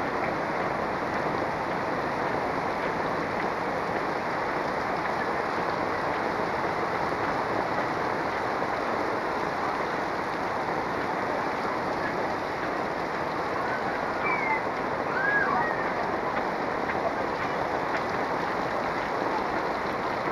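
Heavy rain pouring down steadily: an even, dense hiss of rain hitting the street and the roofs around it.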